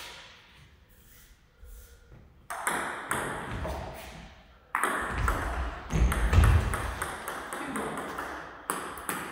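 Table tennis rally: a celluloid ball clicking back and forth off the bats and the table in quick, irregular sharp knocks that ring on in a large hall. It starts about two and a half seconds in, with low thuds around the middle.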